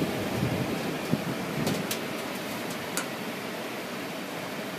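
Air handler running on its replacement ECM variable-speed blower motor, heard as a steady airy hiss; the motor itself is so quiet that it is hard to tell it is running. A low rumble fills the first two seconds, and a few light clicks come around the middle.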